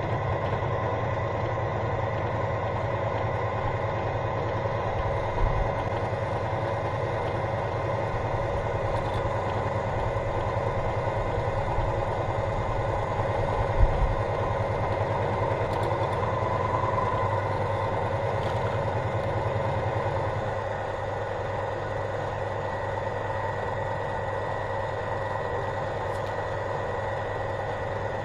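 Motor-driven large meat grinder running steadily through its gearbox, a low hum with a high whine over it, with a couple of brief knocks as plastic toy rings are pushed into the hopper. The sound eases a little about 20 seconds in.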